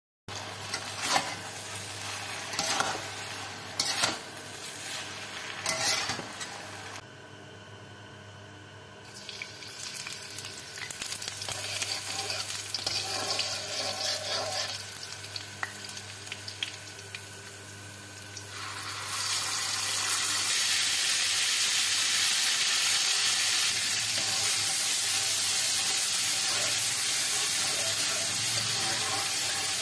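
Spatula scraping and knocking against a wok while tossing fried noodles, then minced garlic frying in oil. About 19 s in, a loud steady sizzle begins as ground chilli paste fries in hot oil.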